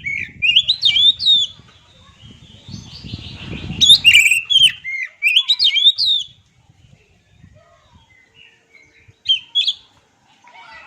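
Oriental magpie-robin (kacer) singing: loud phrases of quick, sweeping whistled notes, then a long pause before one short phrase near the end. Low rustling noise runs beneath the first two phrases.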